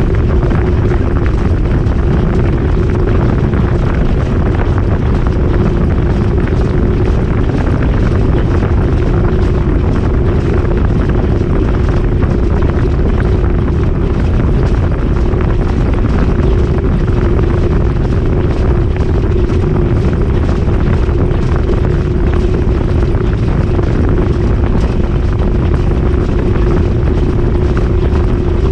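GE GTW220ACKWW top-loading washer in its high-speed spin, heard from inside the spinning drum: a loud, steady rush of noise with one constant hum held at an even pitch.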